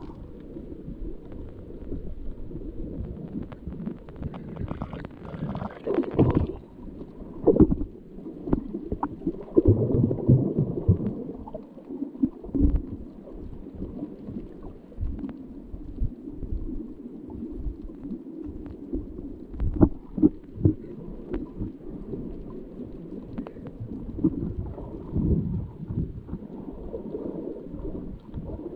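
Muffled underwater sound through a submerged camera: a low, rumbling wash of moving water, broken by scattered louder thumps and knocks.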